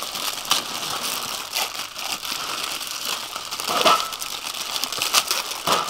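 Plastic instant-noodle packets crinkling and being torn open by hand, several at once, with louder crackles about four seconds in and again near the end.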